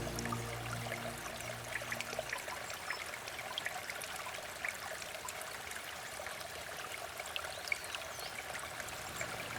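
Water trickling and dribbling like a small stream, with many small scattered drips. The last held tones of soft ambient music fade out over the first two seconds.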